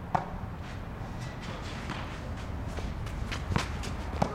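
Sharp knocks of a Stage 3 red tennis ball against a 21-inch junior racket and the court surface, one loud one just after the start and two more close together near the end. Fainter knocks and shuffling footsteps sit between them, over a steady low hum.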